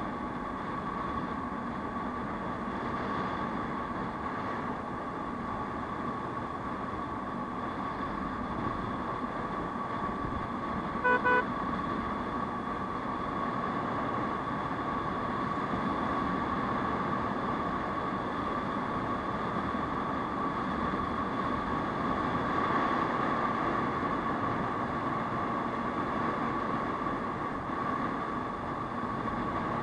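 Aprilia SR 150 scooter cruising at speed: steady engine and wind noise, with a steady whine. About eleven seconds in, a horn gives two short toots in quick succession.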